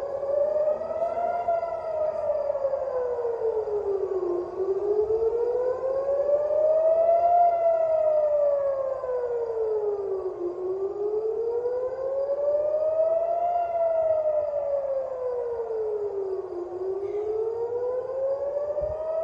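Civil-defence air-raid siren wailing, sounding an air-raid warning. Its pitch rises and falls slowly, about six seconds to each rise and fall, three times over.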